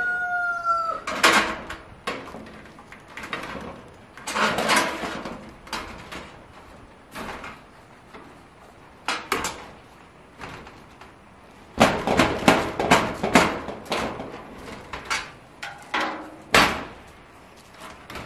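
A rooster's crow trails off about a second in. Then come sharp knocks in clusters, a run of several in quick succession about twelve seconds in, from house wrap being fastened to the gable wall.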